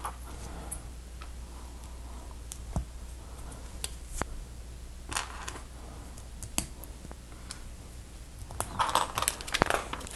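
Small plastic LEGO pieces being handled and pressed together: scattered light clicks and taps, with a busier run of clicks near the end.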